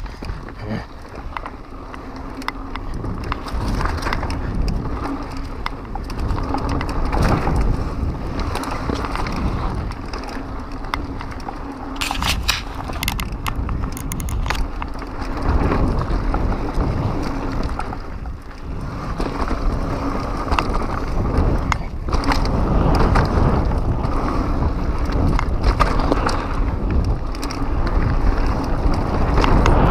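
Pivot Mach 6 full-suspension mountain bike riding fast down a rough dirt trail: tyres rumbling and rattling over the loose ground, with a low rumble throughout. A brief spell of sharp clicking comes about halfway through.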